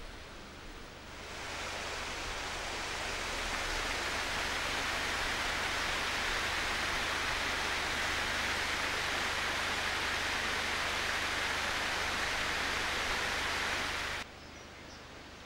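Water rushing steadily over a weir, an even wash of noise that swells up about a second in and cuts off suddenly near the end.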